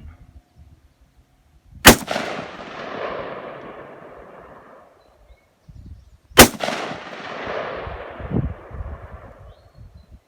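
Two gunshots about four and a half seconds apart, each followed by a rolling echo that fades over about three seconds.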